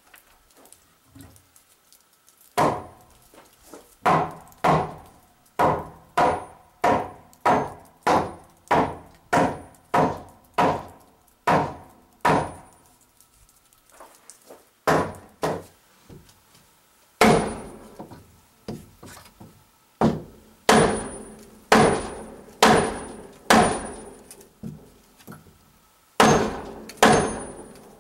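Claw hammer striking timber in steady runs of about two blows a second, with a few short pauses between runs.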